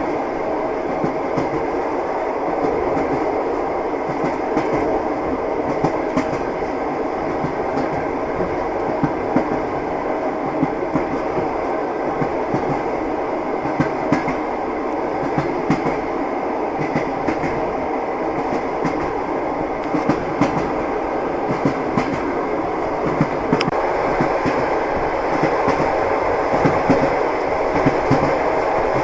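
A train running, its wheels clicking irregularly over the rail joints above a steady rumble, growing slightly louder near the end.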